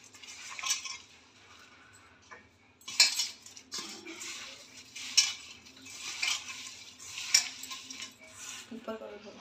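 Hands tossing and mixing raw mango pieces coated in spices and oil in a stainless steel bowl. The pieces scrape and rattle against the metal in separate strokes every one to two seconds.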